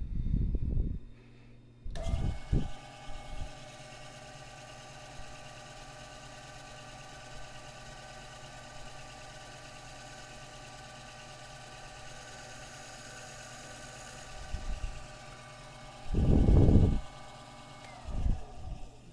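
Lathe switched on about two seconds in, running with a steady whine as its four-jaw chuck spins a pool cue shaft, then switched off near the end and winding down. Several low knocks and bumps, the loudest shortly before it shuts off.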